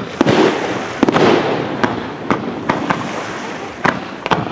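Aerial fireworks bursting in quick succession: a dozen or so sharp bangs and pops at irregular intervals, several followed by a rolling echo.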